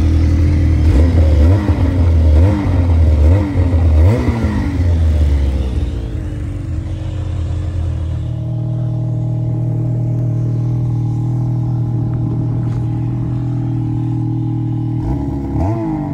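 Ski-Doo 850 E-TEC Turbo two-stroke twin snowmobile engine running through its stock muffler, blipped up and down several times in the first few seconds, then settling. From about halfway, a sled with an RPM chambered titanium muffler idles steadily and a little quieter. Near the end it is blipped again.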